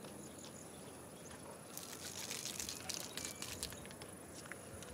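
Crackly rustling of plastic and dry grass being handled, starting about two seconds in and lasting about two seconds, over a faint steady outdoor background.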